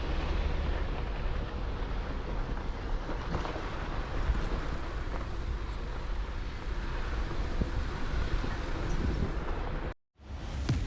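Jeep Wrangler driving off-road: a steady low vehicle rumble with wind noise on the microphone, cutting off suddenly about ten seconds in.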